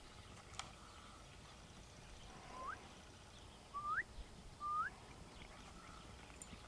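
Three short whistled notes, each holding briefly then sweeping sharply up in pitch, about two and a half, four and nearly five seconds in, over faint outdoor background noise.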